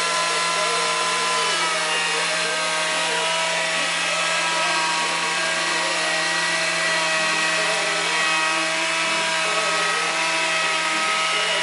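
Wood lathe running steadily, its motor giving a constant whine over a hiss.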